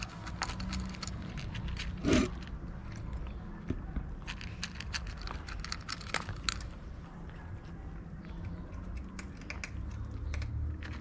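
Kittens crunching dry cat kibble: a rapid, irregular run of small crisp crunches, with one brief louder sound about two seconds in.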